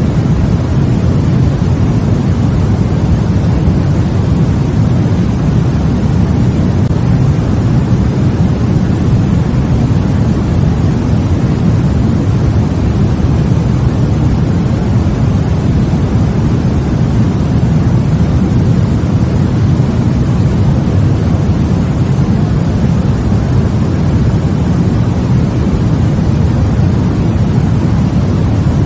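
Steady white noise, deep and rumbling, with most of its weight in the low range and no change or break.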